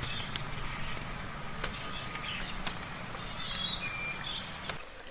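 Birds chirping and warbling in short phrases over a steady background hiss of rain, with scattered sharp drip-like ticks. A low hum underneath cuts off suddenly near the end.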